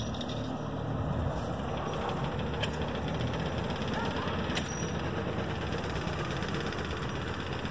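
Kramer KL11 tractor's diesel engine running steadily at low revs, freshly overhauled.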